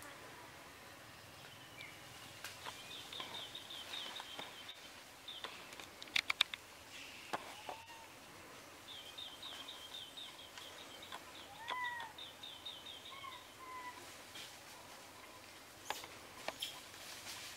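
Forest birds calling: a rapid, high chirping trill that comes twice, and a few short gliding whistled notes, over faint background noise. A quick cluster of sharp clicks comes about six seconds in.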